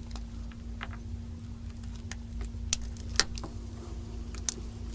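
A few sharp clicks and clinks of small tools and loose broken screen glass being handled, three of them louder, over a steady low hum.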